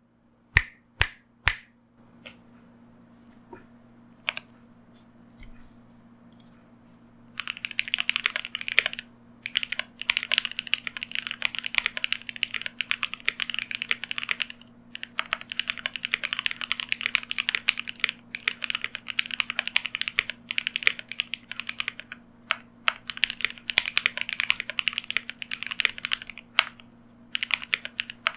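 Typing on a KBD67 Lite mechanical keyboard with Lavender switches and GMK Red Samurai keycaps: three loud sharp key clicks near the start, a few seconds of near quiet, then fast continuous typing with a few brief pauses. A faint steady hum sits underneath.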